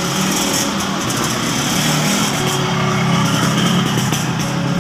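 A motor vehicle running, a loud, steady engine and traffic noise with a low hum underneath.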